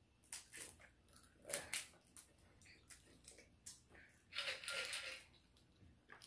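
Crab shell cracking and crunching as it is pulled apart by hand: a series of sharp cracks and snaps, then a longer wet sucking noise about four and a half seconds in.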